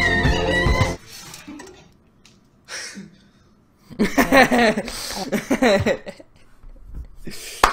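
Background music that cuts off about a second in, then, about four seconds in, roughly two seconds of a person chuckling, and a sharp click near the end.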